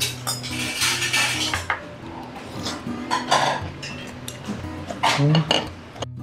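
Metal chopsticks clicking and scraping against ceramic plates and a small bowl: a run of short, sharp clinks of tableware.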